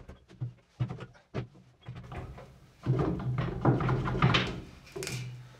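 Knocks and clatter of parts being handled during fuel-tank fitting: a few light knocks, then a louder stretch of rattling and scraping from about three seconds in that fades away near the end.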